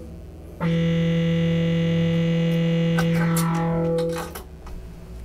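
Analog modular synthesizer voice held on by an inverted gate: a steady buzzy note cuts out as the manual gate button is pressed, comes back about half a second later when it is released, and dies away about four seconds in. A few sharp clicks near the end come from a patch cable being handled.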